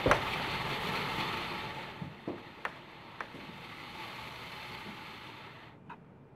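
A single loud thump as a person climbs onto a table-tennis table, then a few light knocks of sock-footed steps on the tabletop, over a steady hiss that fades after about two seconds.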